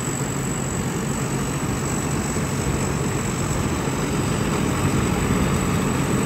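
Tracked rice combine harvester with a Mitsubishi 6M61 six-cylinder diesel engine, running steadily under load while it cuts and threshes rice. It grows slightly louder as it draws nearer.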